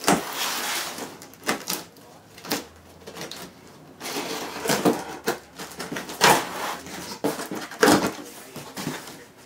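A cardboard shipping box and its packing being handled and opened: irregular rustling and scraping with sharp knocks, the loudest knocks about six and eight seconds in.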